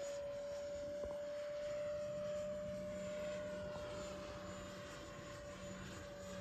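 Electric ducted fan of a Fly Fans JAS-39 Gripen 70 mm RC jet rushing steadily as the model flies by at a distance, with a constant whine underneath.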